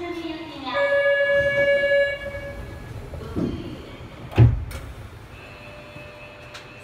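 Subway train door-closing chime: a steady electronic tone held for about a second and a half. A loud thud follows about four seconds in as the doors shut, then a faint steady hum from the train.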